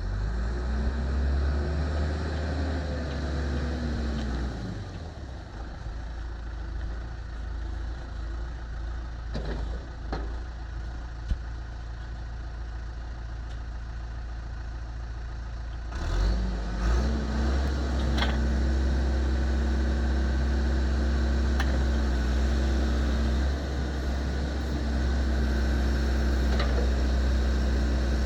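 John Deere 410G backhoe's 4.5-litre four-cylinder turbo diesel running. It revs up and back down near the start, then runs quieter with a few sharp clicks or knocks. About halfway through it steps up to a louder, steady higher speed.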